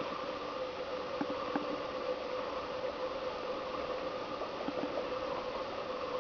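Woodpecker tapping its bill into pine bark: a few short, irregularly spaced taps, several close together about a second in and a couple more near five seconds in, over a steady background hum.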